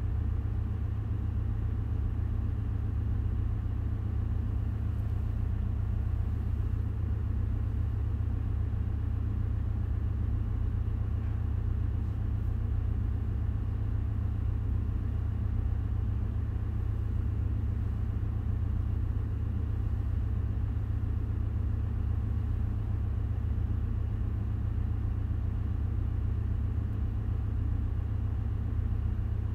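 Steady low machinery rumble with no change, typical of a ship's engine-room background.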